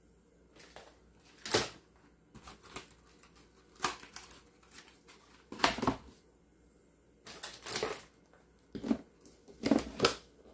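Boxes of aluminum foil and parchment paper and a plastic basket being handled and set into a wooden kitchen drawer: a string of irregular knocks, scrapes and rustles, the loudest about halfway through and near the end.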